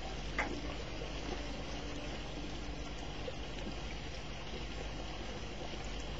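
Steady rain falling during a thunderstorm, an even hiss of water, with one brief tick about half a second in.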